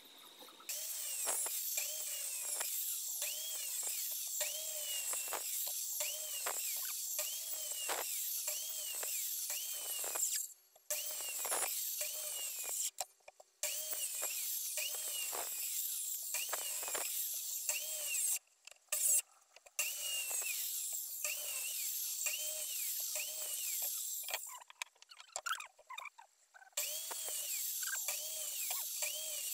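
Handheld electric circular saw running and cutting a wooden board, a high whine with a regular waver, as straight cuts are made to rough a disc out of the board. The sound cuts out briefly several times between cuts.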